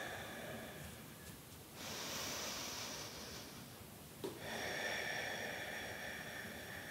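A woman breathing slowly and deeply through her nose during a calming breathing exercise. Soft, long breaths: one starts about two seconds in, and the next follows at about four seconds.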